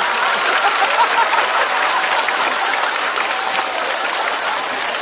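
Live audience applauding steadily after a joke, with crowd voices mixed in.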